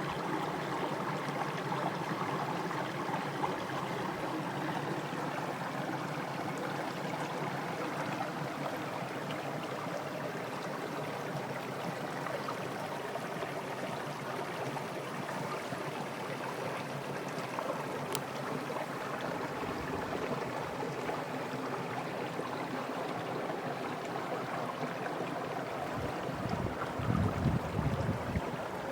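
Creek water running steadily over rocks, a continuous rushing with a few low bumps near the end.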